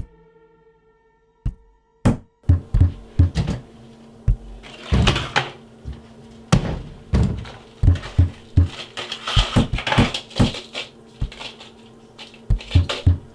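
Irregular knocks, clatters and rustling from a bathroom medicine cabinet being rummaged through and its mirrored door handled, over a low, steady music drone.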